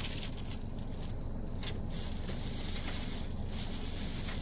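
Plastic food packaging being handled, with a few faint, short crinkles over a steady low background hum.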